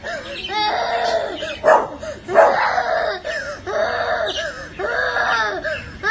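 A young child crying and screaming in a string of high wailing cries, broken by short sobbing breaths.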